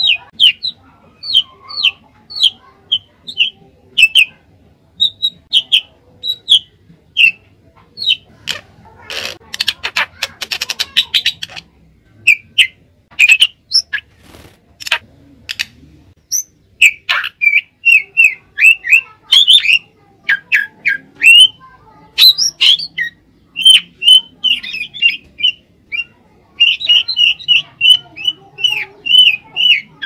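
Caged drongo (srigunting) in full song: a long run of short, sharp whistled and chattering notes, with a harsh rattling stretch of a couple of seconds about nine seconds in. The notes come faster and denser in the second half.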